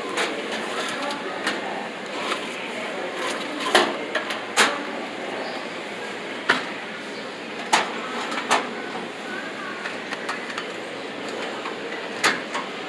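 Metal tool chest drawers and doors being handled, with several sharp clacks over a steady hum of background store chatter.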